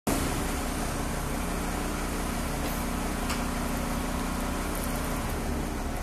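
Braun electro-hydraulic wheelchair lift's pump motor humming as the lift is worked from its pendant control to unfold the platform, stopping about five seconds in, with a single click a little past three seconds. The school bus's engine idles with a steady low rumble underneath.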